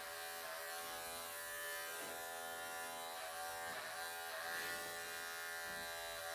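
Wahl electric pet clippers running with a steady buzz while shaving a Persian cat's thick, matted coat. The hum dips briefly in pitch a few times.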